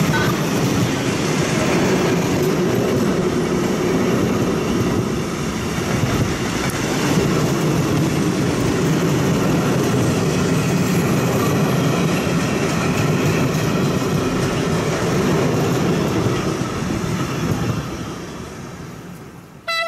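Container-laden flat wagons of a freight train rolling past at speed: a steady rumble of steel wheels on rail with rhythmic clatter over the rail joints, dying away over the last few seconds as the end of the train passes.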